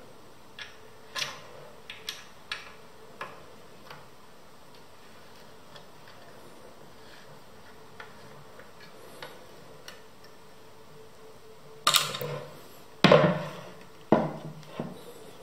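Hex key turning a bolt into a wooden rocking-chair frame: small metallic clicks every second or so as the key is turned and reset in the bolt head. Near the end come several louder knocks as the wooden chair parts are handled.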